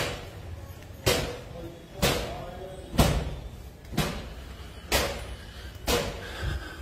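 Footsteps on a hard tiled floor and stairs, one sharp step about every second, each ringing briefly off the walls.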